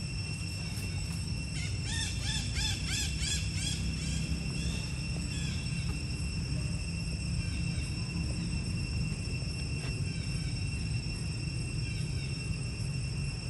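Steady, high-pitched insect drone with a low wind rumble. About two seconds in, a quick series of about ten short rising-and-falling chirps runs for around two seconds.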